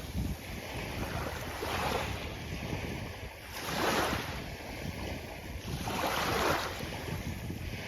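Sea waves washing onto a beach, the surf swelling and falling back in surges every two seconds or so, with a low rumble of wind on the microphone.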